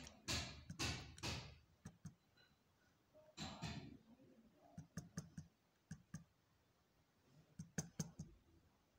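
Sharp clicks from a laptop's pointer buttons, a few at a time in two short groups in the second half. A brief breathy voice is heard in the first second or so.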